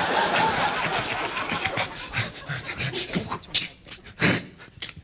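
Sound effects made with a performer's voice and mouth: a breathy, noisy rush for about two seconds, then a run of short pops and clicks.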